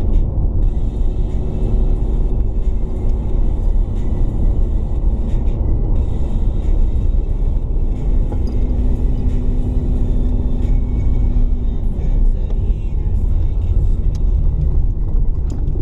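Steady low rumble of engine and road noise from a car driving, heard inside the cabin.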